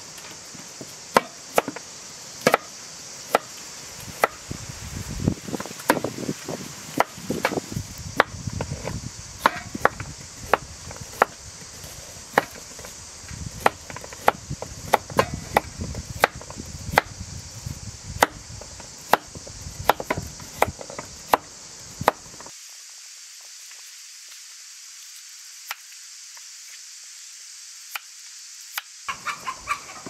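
Kitchen knife cutting a cauliflower into florets on a wooden board: sharp, irregular knocks of the blade against the board, about one or two a second, over a steady high hiss. The cutting stops about three quarters of the way through, and a few light knocks come back near the end.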